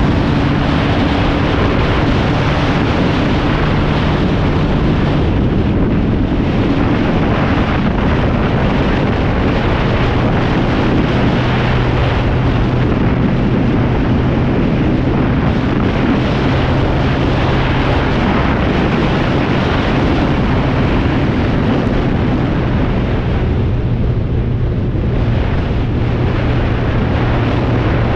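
BMW K1200R Sport's inline-four engine running steadily under heavy wind noise on the microphone, its note dropping slightly about a third of the way in.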